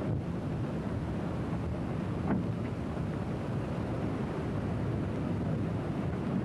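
Steady low rumble of wind and water, as heard on the deck of a moving ship, with a light knock about two seconds in. No whistle sounds.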